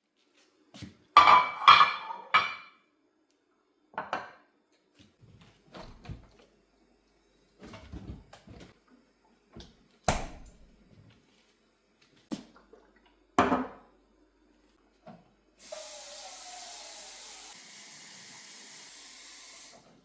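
Dishes and utensils knocking and clattering in a kitchen, loudest in a quick cluster about a second in. Then a tap runs steadily into a sink for the last four seconds.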